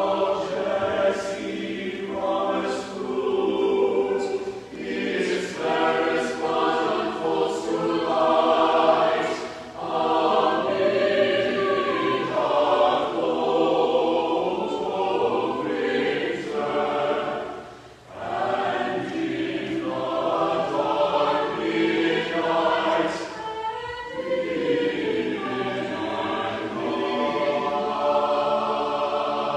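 Mixed choir of men's and women's voices singing a slow, sustained sacred piece in long phrases, with brief breaths between phrases about ten and eighteen seconds in.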